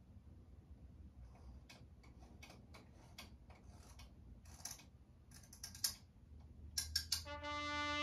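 Irregular clicks and small rattles, some in quick clusters, of a filmstrip being advanced frame by frame through an 'Ekran' filmoscope, over a faint low hum. Near the end a held brass chord of music comes in.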